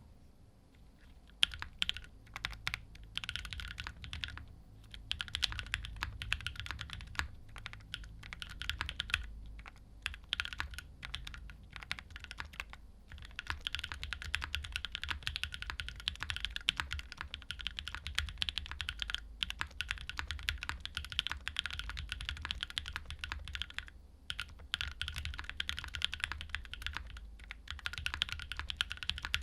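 Continuous fast typing on a Think6.5v2 custom mechanical keyboard: Konpeitou switches lubed with 205g0 and filmed, on an FR4 plate with GMK keycaps, Durock v2 stabilizers and internal dampeners. The keystrokes start about a second and a half in and run on in quick streams with a few brief pauses.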